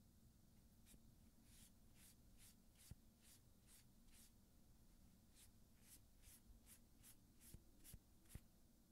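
A nail file rasping across gel-polished fingernails in short back-and-forth strokes, about two a second: two runs of about eight strokes with a brief pause between them, plus a few faint taps. The file is roughening the shiny gel surface, leaving the nails matte and dusty.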